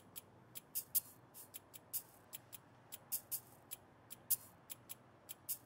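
Sparse, unevenly spaced high-pitched clicks and short hisses at a low level, the quiet percussive opening of a rock/dubstep track.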